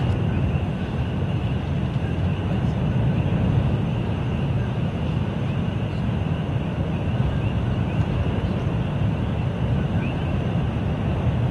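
Lava fountain erupting from a Kilauea fissure, giving a steady low rumble that holds unbroken throughout.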